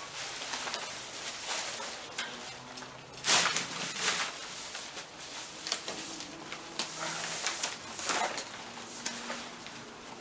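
Tent fabric rustling and swishing as the tent is lifted and handled, with two louder swishes, one about a third of the way in and one near the end, and a few light clicks.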